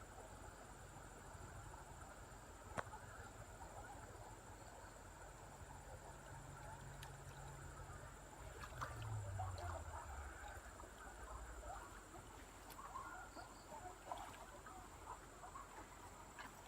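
Faint outdoor ambience full of small scattered chirps of frogs and insects calling, with a single sharp click about three seconds in and a low hum that swells and drops in pitch near the middle.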